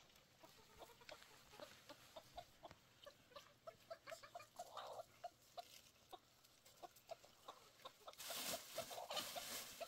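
Faint chickens clucking: a string of short clucks, with a louder stretch of rustling noise near the end.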